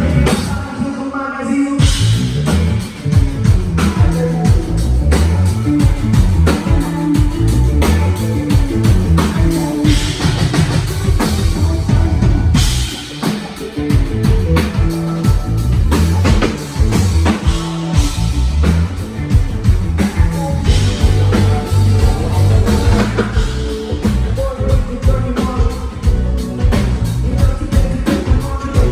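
A rock band playing with drum kit, bass, electric guitar and vocals, at sound check. The full band comes in about two seconds in, after a thinner opening.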